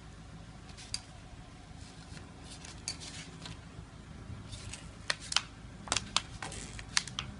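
Plastic spoon stirring and scraping sticky slime in a plastic plate, with scattered wet clicks and snaps that come more often in the second half.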